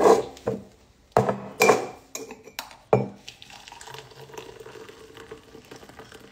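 A few knocks and clinks of mugs and a steel saucepan, then, from about three seconds in, hot milky chai poured steadily from the steel saucepan through a tea strainer into a mug.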